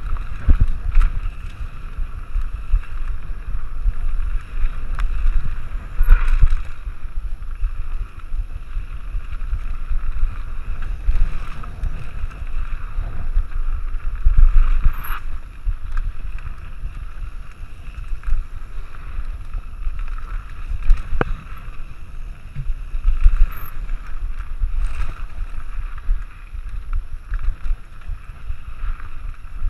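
Wind buffeting the microphone of a camera carried on a mountain bike descending fast down a dirt trail, heard as a heavy, unsteady rumble, with the hiss of tyres on dirt and the bike rattling. A few sharper knocks come through as it hits bumps.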